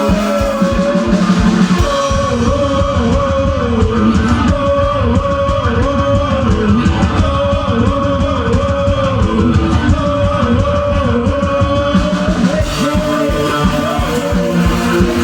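Live rock band playing: a short melodic figure repeating about every second and a half over bass and a pounding drum kit.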